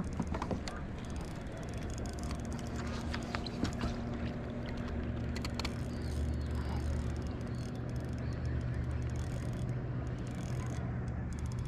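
Kayak moving through calm water: a steady low rumble with water lapping at the hull, and scattered small clicks and ticks.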